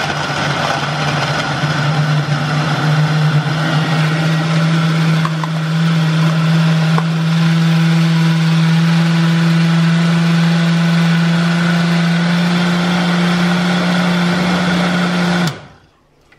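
Oster countertop blender running at a steady pitch, its motor blending frozen fruit into a smoothie; it cuts off suddenly near the end.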